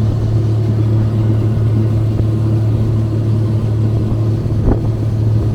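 Boat motor running steadily at cruising speed, a loud low drone, with a brief knock near the end.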